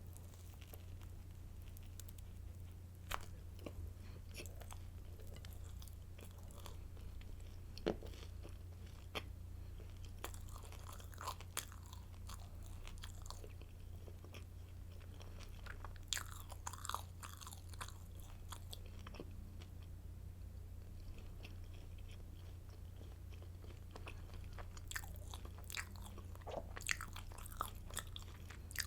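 Close-miked chewing and biting of garlic stick baguette, with crisp crunches that come in scattered clusters.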